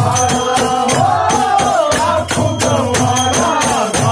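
Hindu devotional song (bhajan) to the goddess Ambika: a voice singing a wavering melody over a steady percussion beat.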